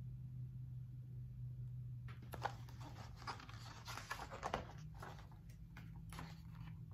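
Rustling and light knocks of a hardcover picture book's paper pages being turned and the book handled, starting about two seconds in, over a low steady hum.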